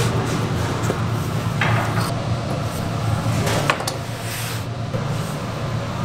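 Bagel dough being cut and pulled into strips on a wooden workbench: a few short scrapes and knocks, about two seconds in and again near four seconds, over a steady low machine hum.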